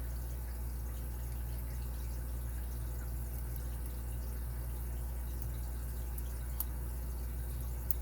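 Faint ticks of a lock pick working the pin stack inside a padlock, with a couple of sharper clicks near the end, over a steady low hum.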